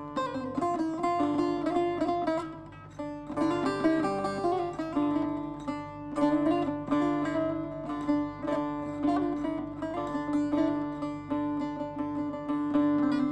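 Background music on a plucked string instrument: quick runs of notes over a steady low drone.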